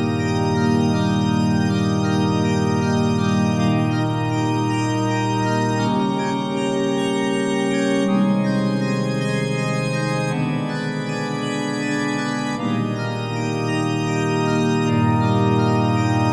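Background music of held, organ-like chords that change every two seconds or so.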